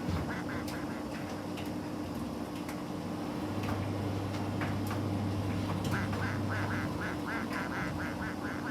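Miele T5205 tumble dryer running with its door open: a steady motor hum, and from about six seconds in a rhythmic squeaking of about three squeaks a second.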